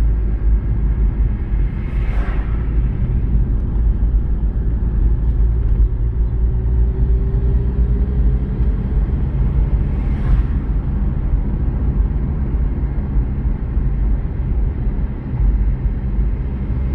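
Car driving, heard from inside: a steady low rumble of engine and road noise. There are two brief whooshes, about two seconds in and again about ten seconds in.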